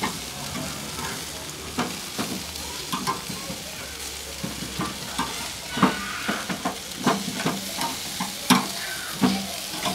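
Chicken wings sizzling on a charcoal barbecue grill as they are turned over, with a steady hiss and many sharp clicks and knocks of handling on the grill.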